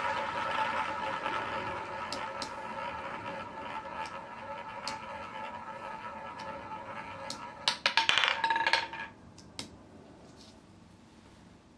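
Roulette balls rolling around the wheel's ball track with a steady, fading whir, ticking a few times against the deflectors from about two seconds in. Near eight seconds in they drop and clatter loudly among the pocket frets for about a second before settling.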